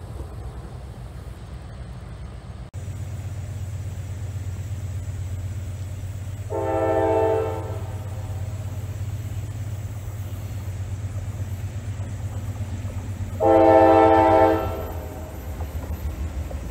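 Diesel freight locomotive air horn sounding two long blasts, each about a second and a half and some seven seconds apart, as the train approaches a grade crossing. A steady low rumble runs underneath.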